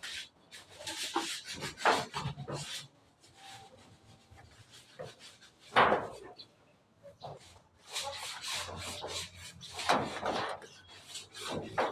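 Irregular scraping and rubbing strokes on wood from hand carpentry work, with the loudest strokes about two, six and ten seconds in.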